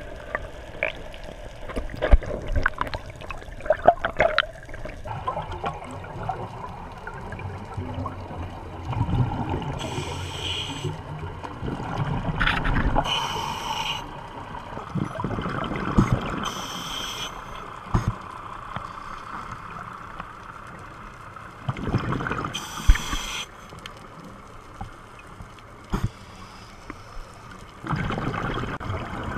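Heard underwater during a scuba descent: a flurry of splashing and bubble clicks at first, then a diver's scuba regulator breathing, with several hissing bursts of exhaled bubbles about a second long every few seconds.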